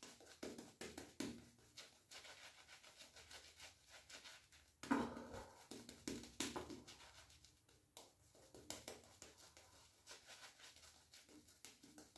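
Shaving brush worked over a lathered face: soft, quick, scratchy swishing of the bristles through the lather. A louder knock comes about five seconds in.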